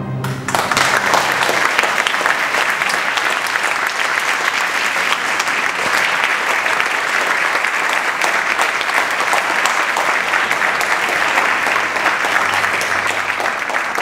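Audience applauding, the clapping swelling in as the orchestra's final chord dies away and then holding steady as a dense, even patter.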